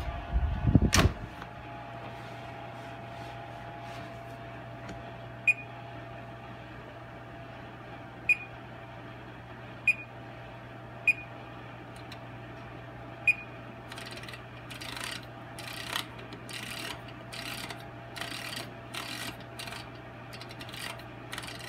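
Electric wall oven door shut with a thud, then the oven's control panel giving five short high beeps a few seconds apart as keys are pressed to set the bake cook time, over a steady low hum. Near the end, a run of soft rustling handling noises.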